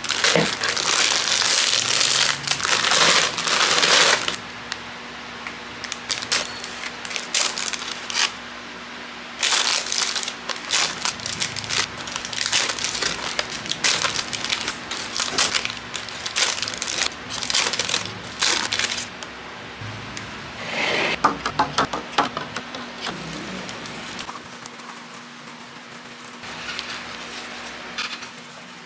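Crinkly plastic snack-cake wrappers rustling and being torn open, with packets tipped out of a bag into a wooden bowl. It comes in long stretches of crackling with quieter gaps between.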